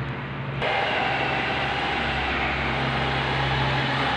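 A steady low mechanical hum under a rushing noise; the rushing grows abruptly louder about half a second in and then holds steady.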